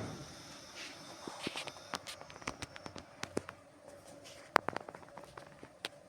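Irregular light clicks and knocks, with a sharper knock about four and a half seconds in.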